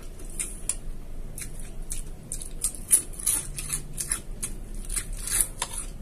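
Someone eating: chewing, with irregular short clicks and scrapes of a metal spoon in a ceramic bowl.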